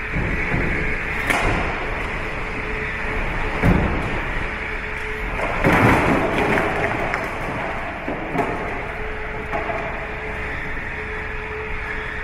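Earthquake shaking-table test of air-conditioner units: a steady mechanical rumble with a constant hum, broken by several sharp knocks and a loud burst of rattling about halfway through.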